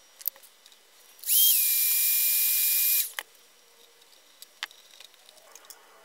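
Hand-held hot-air tool blowing for about two seconds, starting about a second in: a steady airy hiss with a whistling tone that dips slightly as it starts, then holds, and cuts off suddenly. A few light clicks come before and after it.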